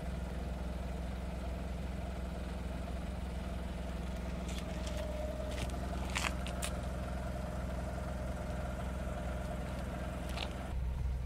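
Car engine idling steadily, with a few sharp clicks of handling in the middle. Near the end the idle hum becomes louder.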